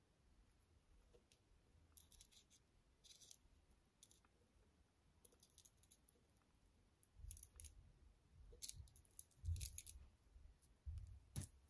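Faint, scattered clicks and rustles of glass seed beads and thin beading wire being handled and twisted by hand, busiest in the second half, with one sharper click near the end.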